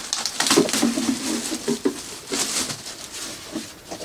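Rustling and handling noises of packaging being pulled and crinkled as an animatronic prop's boots are unpacked, in a run of short uneven rustles and scrapes.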